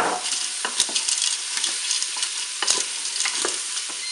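Chorizo and courgette sizzling in the bowl of a Cookeo multicooker on its browning setting. Dry tagliatelle is dropped in and worked with a wooden spoon, giving a sharp knock at the start and scattered knocks and scrapes against the bowl.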